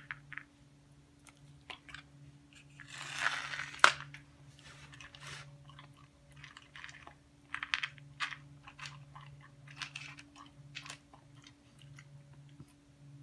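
A dog crunching dry kibble, with many quick, irregular crunches as it eats from a plastic bowl. About four seconds in, a louder rustling rattle ends in one sharp clack as the bowl of kibble is set down on the tile floor.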